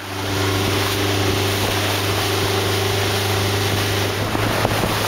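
A wooden motorboat's engine running steadily under way, a low even drone, with water rushing along the hull and wind on the microphone.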